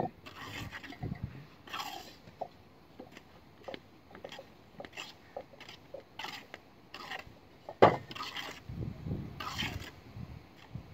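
Wooden roof battens and poles knocking and scraping as they are handled and laid across brick walls: scattered clacks, with one loud knock about eight seconds in.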